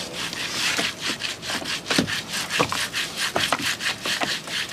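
A boiled sea cucumber scrubbed hard back and forth against a rough stone, a rapid, even run of rasping scrapes, several strokes a second. This is the scraping that strips the chalky calcium layer from its skin.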